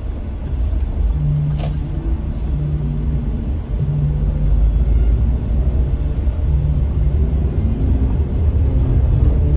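Car driving slowly, heard from inside the cabin: a deep, steady rumble of engine and road noise with an engine hum that comes and goes, and a short click about two seconds in.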